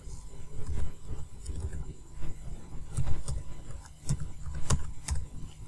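Computer keyboard keystrokes picked up by the recording microphone: irregular dull key taps, with a few sharper clicks in the second half.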